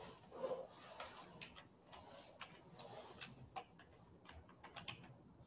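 Faint, irregular keystrokes on a computer keyboard: scattered single clicks of typing.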